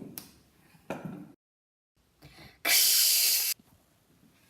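A loud hiss lasting under a second, a little past the middle, after a brief cut to total silence; fainter rustle-like noises come before it.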